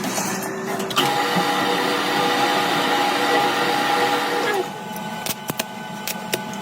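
An electric workshop power tool runs loudly under load with a steady whine for about three and a half seconds, starting about a second in, then cuts back to a lower hum. A few sharp metal clicks follow near the end.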